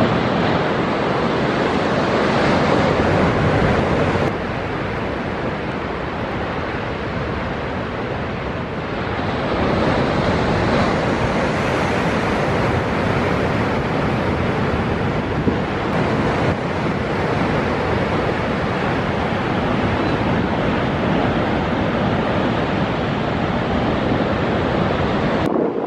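Rough sea surging against limestone cliffs and through the bufones, coastal blowholes driven by the swell to jet spray with a hoarse rushing roar, heard as one continuous loud noise. Wind buffets the microphone.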